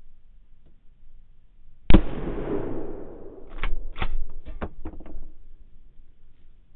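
A single rifle shot at wild boar about two seconds in, its report echoing and dying away over about a second and a half, followed by several sharp knocks over the next second and a half.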